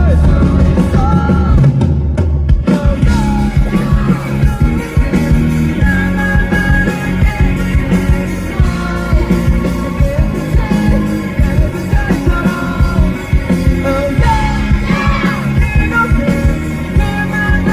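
A rock band playing live, with a sung vocal line over the full band and a steady drum beat.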